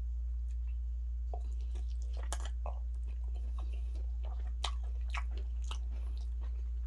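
Close-up mouth sounds of someone eating fufu and spicy turkey stew: chewing with scattered sharp wet clicks, over a steady low hum.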